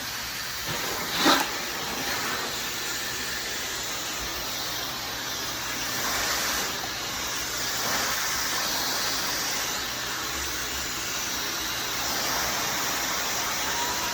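Dyson hair dryer running steadily, a smooth rush of blown air with a soft hiss; a brief knock about a second in.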